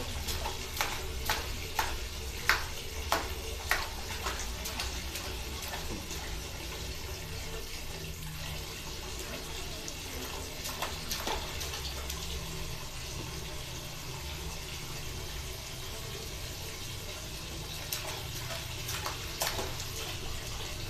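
Water running steadily from a tap into a plastic bucket already full of water, with hands slapping and splashing in it: a quick run of sharp splashes in the first few seconds and a few more near the end.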